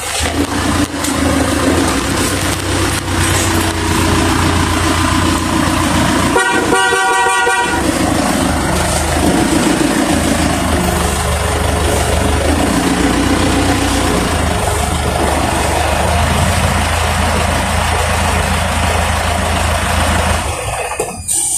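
Honda TMX 125's single-cylinder engine running steadily. A horn toots once for about a second and a half, about six and a half seconds in.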